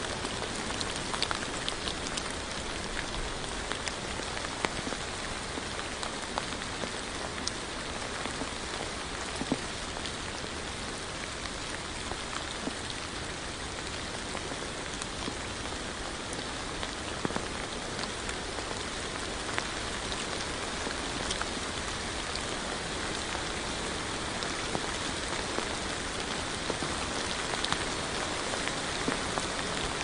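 Steady rain falling, with scattered sharper ticks of individual drops hitting.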